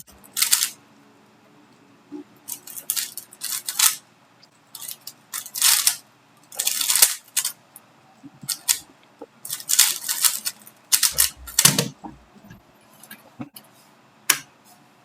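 3x3 Rubik's cube being turned fast during a timed solve: irregular bursts of plastic clicking and clacking, with short pauses between clusters of turns.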